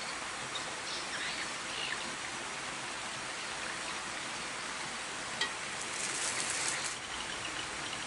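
Steady rushing of water at a dam, with a few faint bird chirps in the first couple of seconds. A click a little past five seconds in is followed by a short, high rattling burst.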